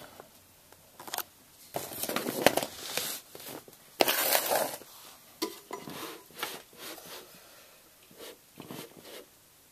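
Handling noise from hands working around an aluminium Mac Pro tower: rustling scrapes with knocks and clicks. The noise is busiest and loudest in the first half and thins to a few fainter clicks near the end.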